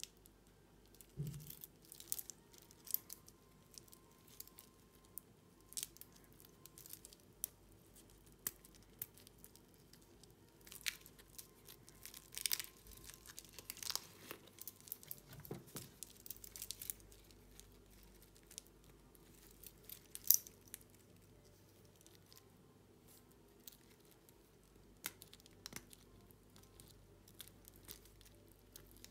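Protective plastic film being peeled off a stainless steel watch bracelet: intermittent crinkling and tearing, with scattered small clicks as the bracelet is handled and the sharpest click about two-thirds of the way through.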